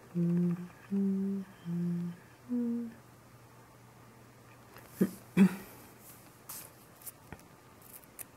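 A person humming a short tune in five held notes over the first three seconds. About five seconds in come two sharp knocks with a brief rustle, the loudest sounds, followed by a few faint clicks.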